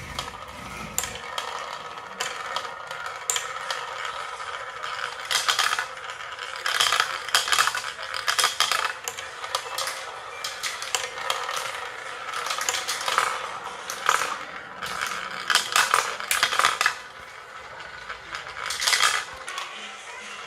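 Marbles rolling and clattering down a marble run: a continuous rolling rattle broken by many sharp clicks and clacks.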